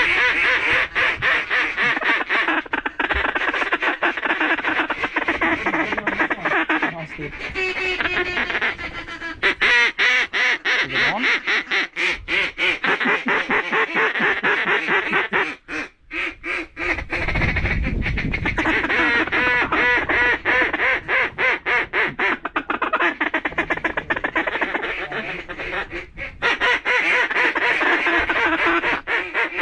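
Mallard duck call blown hard and continuously: fast quacking chatter in long runs, with only brief pauses.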